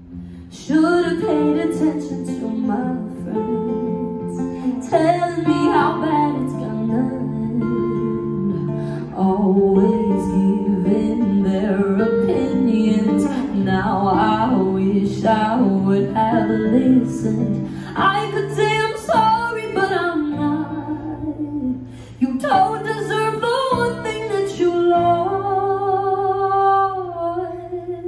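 A woman singing a slow pop song live into a microphone, accompanied by acoustic guitar. She comes in just under a second in and sings in long phrases with short breaths between them.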